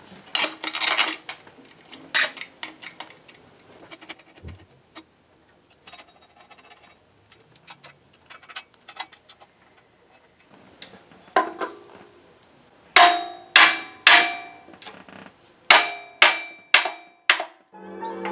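Metal tools and parts clinking and clanging: light scattered clicks at first, then a run of sharp metallic strikes in the second half, each ringing briefly.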